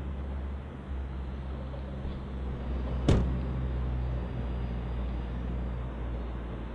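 A car door slams shut once, about three seconds in, over a steady low hum.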